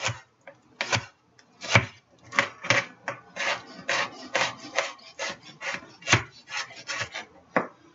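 Kitchen knife fine-dicing Roma tomatoes on a cutting board: a series of chopping strokes, each cut landing with a knock on the board. The strokes are spaced out at first, then come quicker, about three a second.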